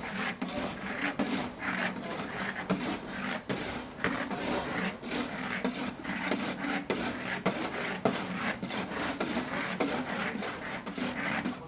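Rapid, repeated rubbing and scraping strokes, each a short burst of noise, over a steady low hum.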